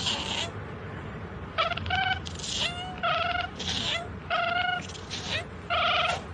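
A domestic cat meowing over and over: a run of about eight short, high meows, some bending in pitch.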